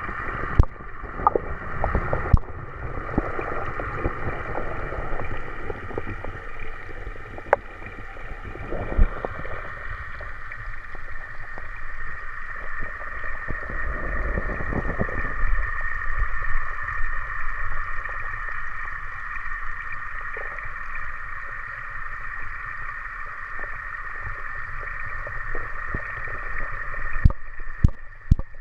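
Underwater sound picked up through a GoPro's waterproof housing in a pond: a steady hum with low, muffled rumbling that swells and fades. Scattered sharp knocks, several in the first few seconds and a cluster near the end.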